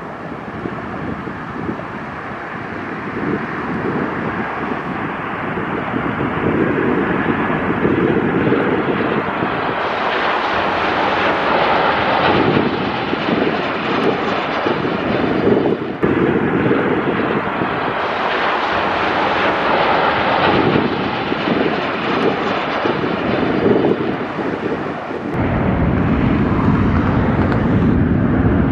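Jet airliners' engines heard outdoors near the runways: a continuous rushing, rumbling jet noise that changes abruptly several times as one plane gives way to the next. From about 25 seconds in a deeper rumble comes in, an Airbus A321 on final approach.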